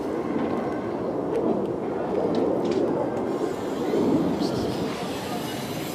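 Steady low rumble of outdoor street ambience, with a few faint clicks.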